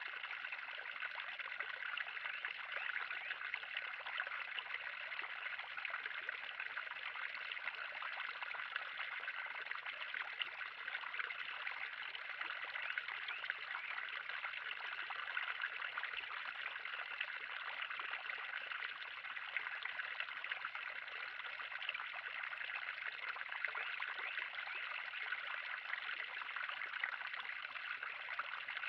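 Steady trickling and splashing of running water in a 3000-gallon garden pond.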